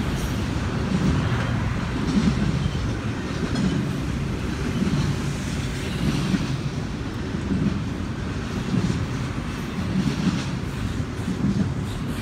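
Double-stack intermodal freight train rolling past: a steady low rumble of the well cars on the rails that swells and eases about every second.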